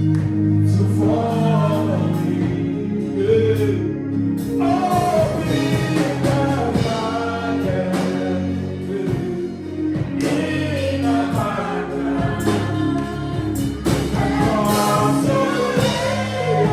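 Gospel music with a choir singing over sustained keyboard chords.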